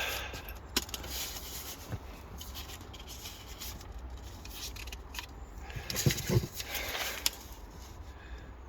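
Handling noises from work on the rear door trim: light scraping and rubbing with a few small clicks, and a louder bout of scraping and knocking about six seconds in.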